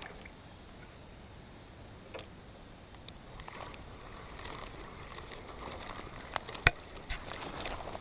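Spinning reel being cranked, a quiet whir of the gears and line winding in, with a few light clicks and one sharp tap a little before the end.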